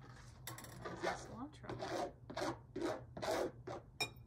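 Utensil scraping chopped cilantro across a flexible plastic cutting board into a bowl: repeated rasping strokes, about two a second, with a sharp click near the end.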